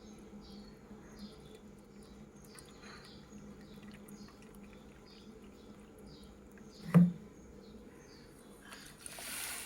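Short high chirps from a small animal repeat about twice a second in the background. A single sharp knock comes about seven seconds in, and a brief hiss near the end.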